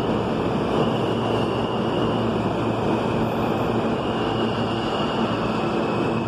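Steady rumble of a New York City subway train running through an underground station, with faint high tones coming and going above it.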